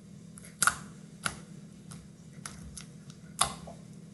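Homemade slime being squeezed and stretched by hand, giving off sharp clicking pops about every half second to a second.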